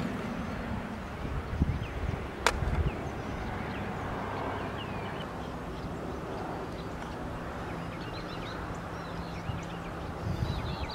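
Open-air ambience: a steady low rumble with faint, scattered chirps of distant birds, and one sharp click about two and a half seconds in.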